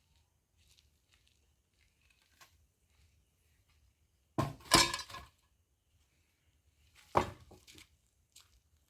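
Two bursts of clattering knocks about three seconds apart, the first a quick run of strikes lasting about a second, the second shorter, with a few faint ticks between.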